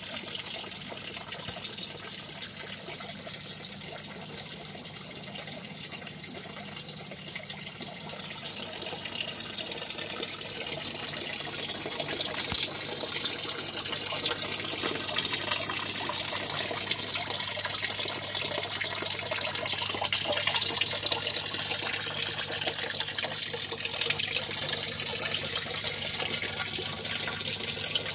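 Water running and splashing steadily into a fish tank, getting louder about ten seconds in, with a steady low hum underneath.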